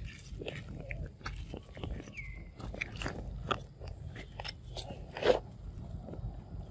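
A macaque biting into and chewing a green fruit, tearing the peel: irregular wet crunches, the loudest about five seconds in.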